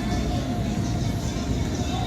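City street ambience: a steady din of traffic, with music playing over it.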